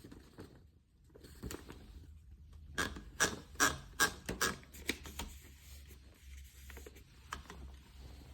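Olivetti Lettera 32 manual portable typewriter being typed on: scattered key strikes, with a quick run of loud, sharp clacks about halfway through.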